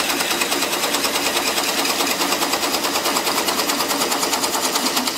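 Delta 16.5-inch drill press, run slowly by a VFD at about 280 RPM, boring into hardwood with a large Forstner bit: a steady, rapid, even chatter of the cutting bit.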